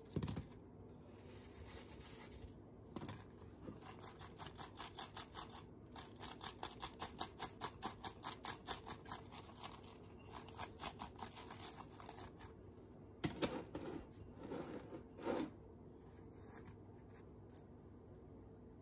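Donut holes being shaken in a glass bowl of cinnamon sugar: a thump as they drop in, then a long run of quick gritty scrapes, about five a second, as they roll and slide against the glass, and a few knocks near the end.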